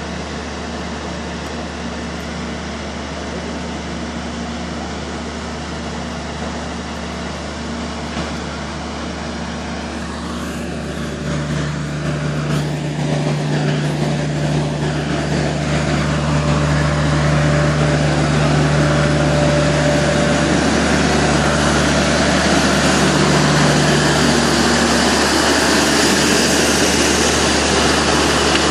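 Fire truck engine running steadily, a constant low hum that grows louder about halfway through.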